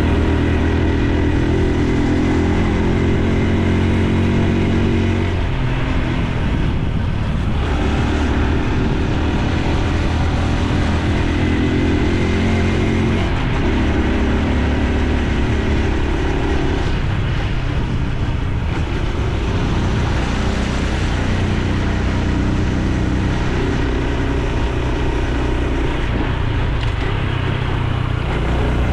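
Honda Super Cub C125's air-cooled single-cylinder 125 cc four-stroke engine and exhaust running steadily while riding, its note shifting a few times.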